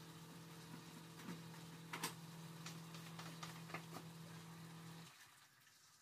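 Faint kitchen handling sounds: a scattering of light clicks and knocks as a white bowl and utensils are handled at the stove. Under them runs a steady low hum that cuts off about five seconds in.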